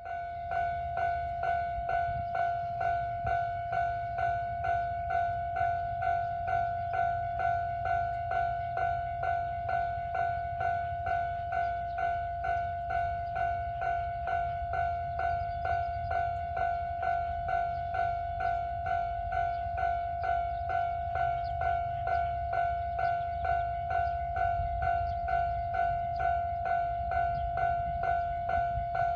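Japanese railway level-crossing alarm ringing its electronic 'kan-kan' warning tone, an even repeating strike about twice a second, over a low rumble.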